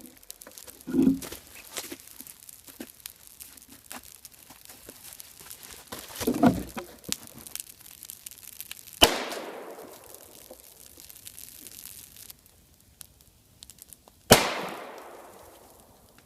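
Two heated CO2 cartridges bursting: two sharp bangs about five seconds apart, each trailing off over a second or two, the second the louder. Small crackles and ticks run underneath.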